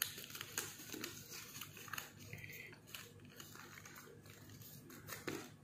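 Faint, scattered rustling and crinkling of origami paper being folded and creased by hand.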